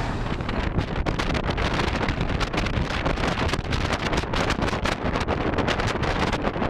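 Wind buffeting the microphone: a loud, uneven rumble broken by rapid, irregular crackles.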